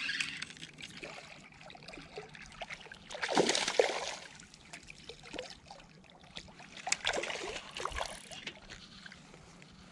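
A hooked small bass splashing at the water's surface near the bank as it is reeled in, in a few short bursts with the strongest about three and a half seconds in.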